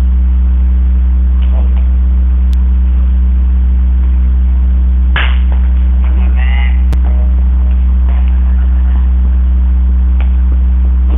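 Loud, steady low electrical hum, with faint distant shouts about five and six and a half seconds in.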